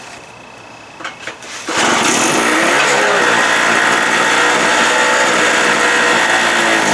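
Harbor Freight Tailgater generator's small two-stroke engine being pull-started: a couple of short pulls about a second in, then it catches and runs loud and steady at high speed.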